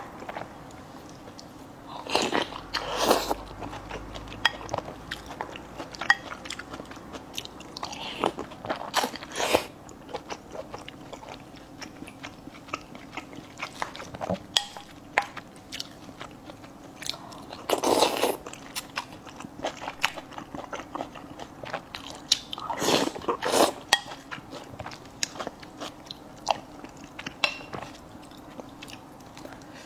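Close-up eating sounds: a person biting, crunching and chewing food with many small wet clicks, broken by several louder bursts lasting about a second each.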